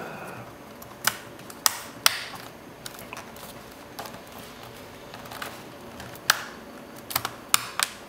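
Plastic bottom cover of a Lenovo X120e netbook being pressed back onto the chassis by hand: an irregular series of sharp plastic clicks and snaps as the cover's clips seat, with the strongest around one, two and six seconds in.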